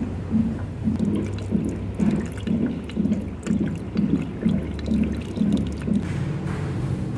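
Water running from a water dispenser's two taps into a rice cooker pot of raw rice, filling it to wash or cook the rice. Beneath it is a low, even pulsing about twice a second that stops about six seconds in.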